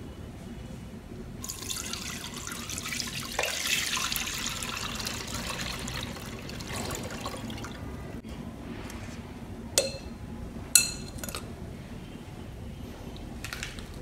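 Thin milk batter poured from a glass bowl through a wire-mesh strainer into a pan: a steady splashing pour that eases off after about six seconds, then a couple of sharp clinks.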